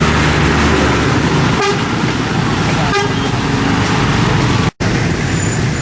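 Road traffic noise: vehicle engines running, with a horn sounding briefly twice. The sound cuts out for a moment about three-quarters of the way through.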